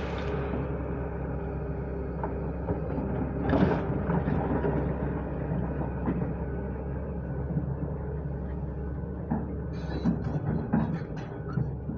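JCB digger's diesel engine running steadily under load. There is a louder rush of scraping noise about three and a half seconds in, and a few sharp knocks near the end.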